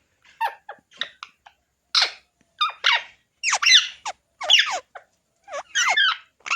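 A pet parrot making a rapid string of about a dozen short, high-pitched squawks and chattering calls, many of them falling in pitch.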